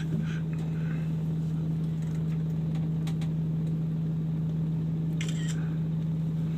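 A steady low hum, holding one pitch throughout, with a few faint ticks and a brief hiss about five seconds in.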